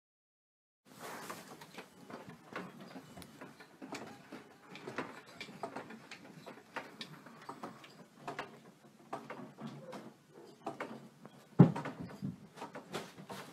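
A room rattling and knocking as an earthquake shakes the house: a dense run of irregular clicks and knocks from about a second in, with one loud thump near the end.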